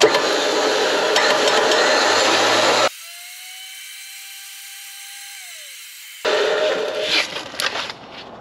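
Warn 8274 winch drum turning under power with an abrasive sheet held against it by hand, a loud steady scraping as surface rust is sanded off the drum. The scraping stops just under three seconds in, leaving a quieter stretch with a faint whine that dips in pitch. It starts again about six seconds in.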